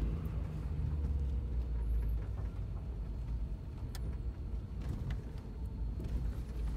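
A motor vehicle driving, with a steady low engine and road rumble.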